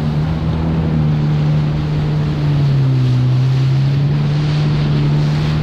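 Yamaha FX Cruiser WaveRunner's four-stroke engine running at speed through choppy water, its pitch sagging a little about two seconds in and climbing back. Water rushes past and wind buffets the microphone.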